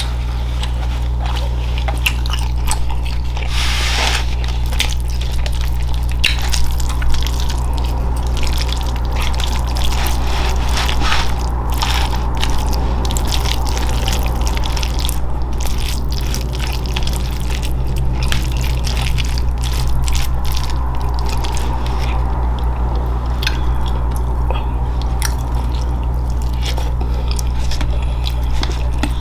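Close-miked chewing of soft, saucy food: many small wet mouth clicks and smacks, over a steady low hum.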